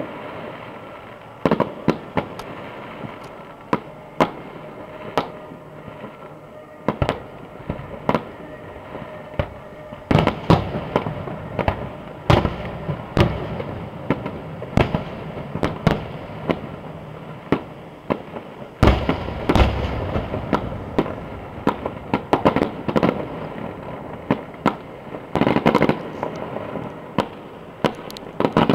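Aerial fireworks display: shells bursting in an irregular string of sharp bangs and crackles, thickening into quicker volleys about a third of the way in and again near the end, with the deepest boom about two-thirds through.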